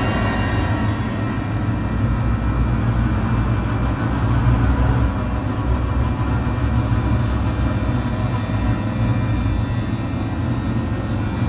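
Dark ambient music: a steady low rumbling drone with faint high held tones over it.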